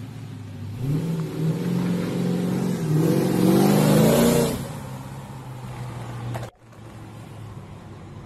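Loud exhaust of a red Chevrolet Monte Carlo SS accelerating past, its engine note climbing in pitch and loudest about four seconds in, then dropping away. Shortly after, the sound breaks off abruptly and a fainter, steady engine sound remains.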